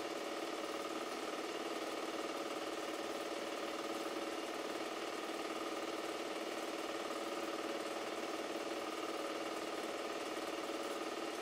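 Super 8 film projector running: a steady motor hum with a fast, even clatter of the film transport.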